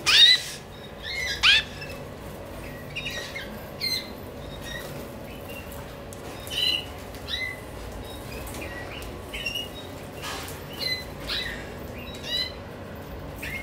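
Canaries chirping in short, separate calls, the loudest ones in the first two seconds and softer ones scattered every second or so after.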